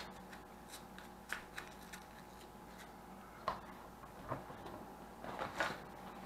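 Faint rustling of nylon fabric with scattered soft clicks and knocks as a plastic training pistol in its holster is handled and pushed into a sling pack. The sharpest knock comes about three and a half seconds in, another just after four seconds, and a brief rustle near the end.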